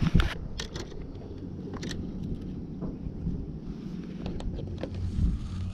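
Wind rumbling on the microphone over a low steady hum, with a few light clicks and taps from a fishing rod and soft-plastic bait being handled.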